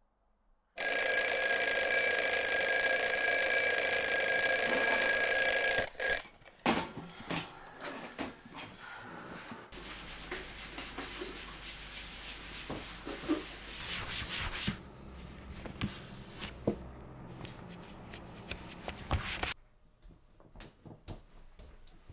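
A twin-bell alarm clock rings loudly and steadily for about five seconds, then stops abruptly. It is followed by scattered short knocks and clinks of someone working at a kitchen counter, over a low hum.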